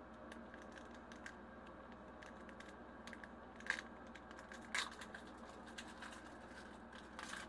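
Foil booster pack wrapper being torn open and handled, faint crinkling with a few short sharp crackles, the clearest a little past the middle and near the end.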